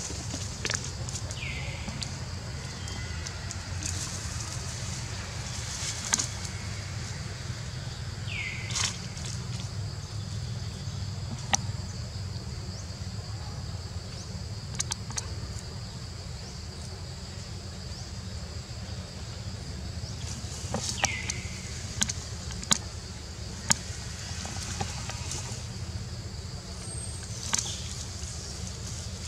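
Outdoor forest ambience: a steady low wind rumble on the microphone and a steady high-pitched drone, with three short whistled calls that fall in pitch and scattered sharp snaps, several close together in the second half.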